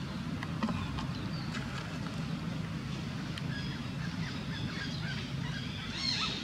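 Outdoor ambience: a steady low hum with scattered small clicks and rustles, and short high-pitched animal calls, one louder call about six seconds in.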